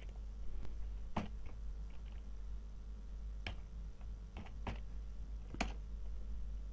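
Irregular clicks from a computer keyboard and mouse as a formula is typed, a handful of separate keystrokes spread a second or so apart. A faint low steady hum sits underneath.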